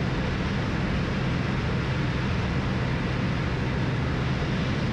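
Steady drone of a Cessna Turbo Centurion's engine and propeller in flight, under an even rush of wind noise.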